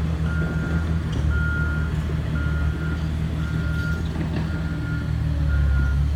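Back-up alarm of a heavy earthmoving machine beeping about once a second, over the steady low running of its diesel engine.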